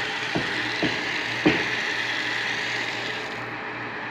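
Electric water pump running while water spurts from an open PPR ball valve at the end of the line, in knocks about twice a second at first, then steadier; the hiss of the spray falls away near the end.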